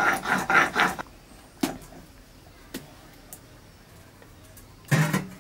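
Stone roller grinding spice paste on a flat grinding stone (sil-nora), rubbing back and forth about four strokes a second and stopping about a second in. A few light taps follow, then one short loud scrape near the end.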